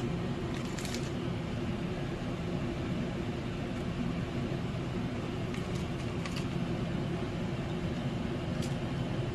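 Steady machine hum, like a kitchen fan or motor running, with a few faint light clicks scattered through it.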